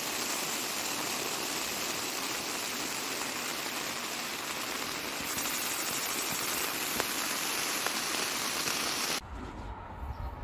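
Steady rain on a tent's flysheet, heard from inside the tent as an even hiss. About nine seconds in it cuts to a low, gusty rumble of wind on the microphone outdoors.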